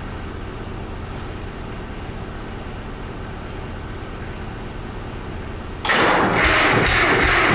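GM Detroit Diesel 1-71 single-cylinder two-stroke diesel on a cold start without ether, making a steady low engine rumble. Near the end a sudden, much louder sound cuts in with a quick regular beat.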